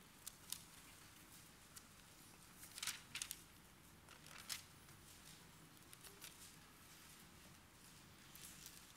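Pages of a Bible being leafed through at a lectern: a few soft paper rustles and flicks, otherwise faint room tone.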